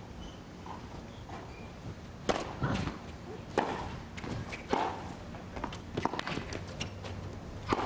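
Tennis rally: sharp racket-on-ball strikes every second or so from about two seconds in, with lighter clicks of footsteps on a hard court between them.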